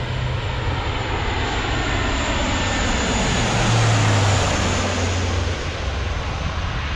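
A Lockheed C-130J Super Hercules turboprop transport passing by under engine power. Its loud, steady drone swells to a peak about four seconds in, and the engine pitch drops as it goes past.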